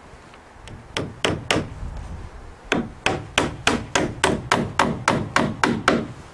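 Claw hammer driving galvanized nails into the mitered wooden trim corner of a shed's gable: three blows, then after a short pause a steady run of about a dozen blows, roughly three a second, each with a short metallic ring.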